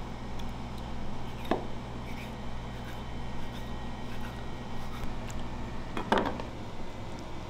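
A chef's knife scoring a squid body on a plastic cutting board: soft cutting and a few short knocks, the sharpest about one and a half seconds and about six seconds in. A steady low hum runs underneath.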